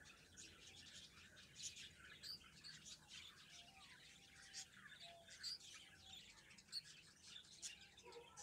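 A group of finches chirping faintly: many short, high chirps overlap in a steady busy chatter, with a few short lower notes among them.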